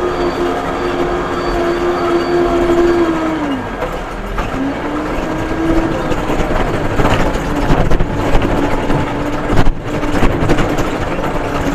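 Case 580M backhoe's diesel engine running hard while digging; its pitch sags about three and a half seconds in and picks back up a second later. Metal clanks and knocks come through in the second half as the bucket works in hard, heavy sand.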